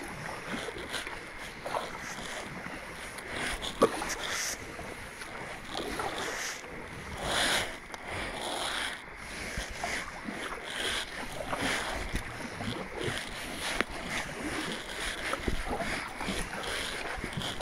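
Kayak paddle strokes: the blades dipping and dripping water alongside a plastic sit-on-top kayak, in irregular swells of splashing. There is one sharp knock about four seconds in.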